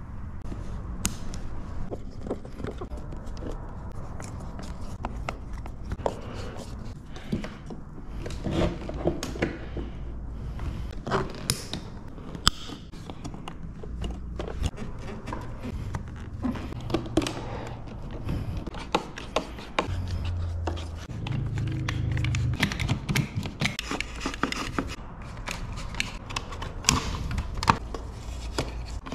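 Scattered clicks, taps and scrapes of hands working the plastic bodywork, airbox parts and fasteners of an Aprilia RSV4 motorcycle. Near the end a hex key is turning a fairing screw.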